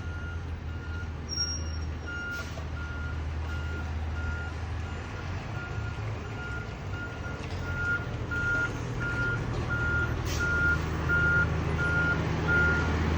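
Fire truck's reversing alarm beeping steadily over the low drone of its diesel engine as the truck backs up, growing louder toward the end.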